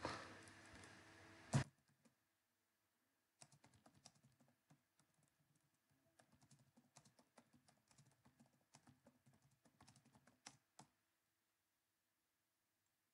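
Faint typing on a computer keyboard: many quick, irregular key clicks over about seven seconds. Before it, a faint hiss cuts off with one sharp, louder click about a second and a half in.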